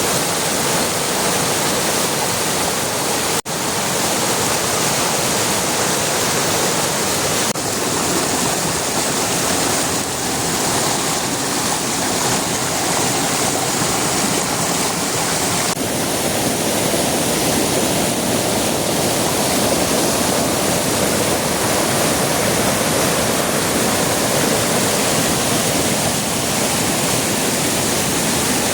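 Flowing river water rushing steadily. There is a brief break about three and a half seconds in, and the tone shifts slightly a little past halfway.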